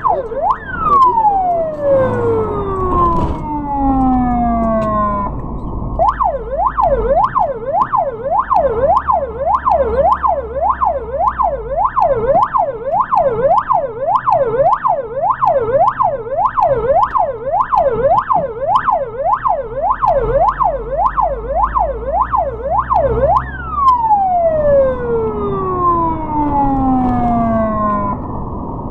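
Ambulance siren in a fast yelp, its pitch swinging up and down about twice a second, heard from inside the vehicle over a low engine rumble. Twice the yelp stops and the tone slides steadily down for about four seconds, once near the start and once near the end.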